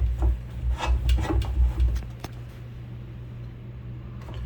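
Handling noise from working on a clothes dryer: a few short clicks and rubbing scrapes over a low rumble in the first two seconds, then quieter.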